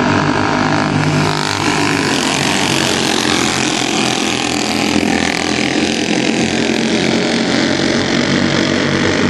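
Several race car engines running hard at racing speed, a dense, loud drone of engines and tyre noise that swells as the cars pass and then eases a little.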